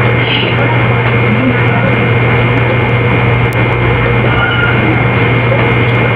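Steady loud hiss with a constant low hum and a faint high whine: the background noise of a quiet room, turned up very loud. A faint tick about three and a half seconds in.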